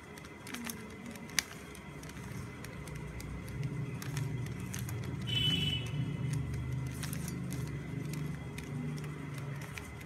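Plastic 3x3 Rubik's cube being turned by hand, its layers giving a scatter of small clicks and clacks, with one sharper click about a second and a half in. A low background rumble swells under the clicks from a few seconds in.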